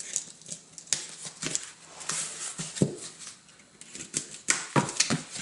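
Stiff corrugated cardboard being handled and pulled out of a cardboard mailer: irregular scraping, rubbing and sharp tapping clicks as the pieces knock and slide against each other.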